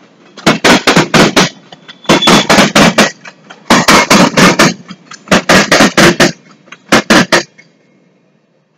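Steel wheels of an empty freight train of gravel hopper cars clacking over the track. The sharp clacks come in quick bursts of four to six about every second and a half, as each pair of car trucks passes. They stop about seven and a half seconds in as the last car goes by.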